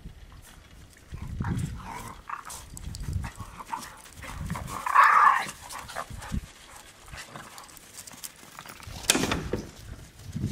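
Dogs playing in snow, with one loud bark about halfway through and another sharp cry near the end, among scuffling and low rumbles.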